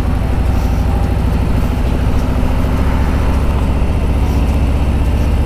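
Harley-Davidson motorcycle's V-twin engine running steadily at low revs, a deep even drone with no revving.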